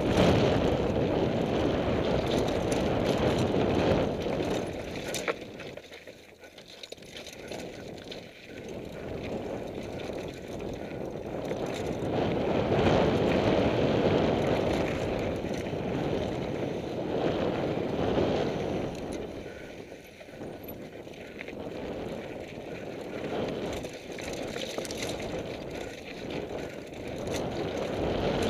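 Downhill mountain bike descending a rocky dirt trail: wind rushing over the microphone and tyres rolling over dirt and loose rock, with scattered knocks and rattles from the bike. The rush eases off about six seconds in and again around twenty seconds, then builds back up.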